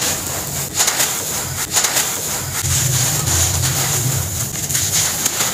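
Hands crushing molded shapes of gritty sand, the grains crunching and pouring in a continuous hiss, with sharper crunches near the start and twice more in the first two seconds. The sound is sped up to 1.5x.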